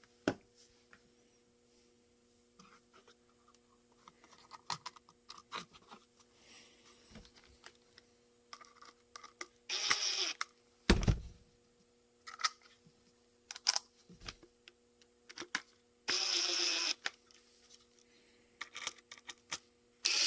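Scattered clicks and taps of small holster hardware being handled. A low thump comes about halfway through, and there are two short, even whirs of a small power tool, one about halfway through and one near the end.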